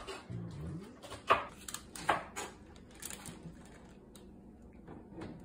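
Faint, irregular kitchen knocks and clicks, a few sharp ones about a second apart, with light rustling between them.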